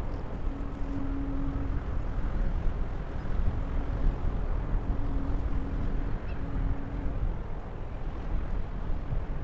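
Wind buffeting the microphone over the low rumble of a large ship passing close by. A faint steady hum comes in about half a second in and again for a few seconds in the middle, breaking off now and then.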